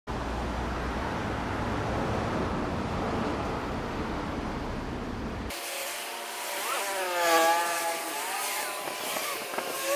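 Road traffic: cars driving past on a two-lane road, a steady low rumble of engines and tyres. About five and a half seconds in the sound changes abruptly to a hissier one, with a pitched tone that wavers up and down around seven seconds in.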